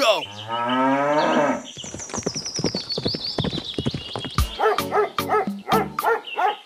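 A cow moos once, one long call in the first second and a half, then background music of short, quick notes follows.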